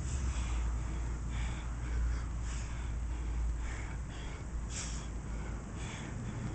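A man breathing hard through sit-ups, with sharp, hissy exhales about once a second. A steady low rumble runs underneath.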